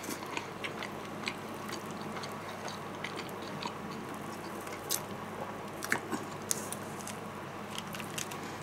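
A person chewing fried chicken and tearing the meat apart with his fingers, with scattered small clicks and crackles of the crisp coating and wet mouth sounds.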